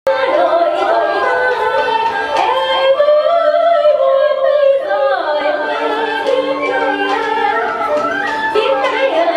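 Traditional Vietnamese water puppet theatre music played live: a voice singing in sliding, curving pitches over plucked string instruments, with sharp percussion clicks.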